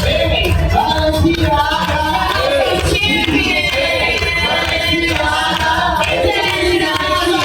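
Several voices singing over music with a steady low bass.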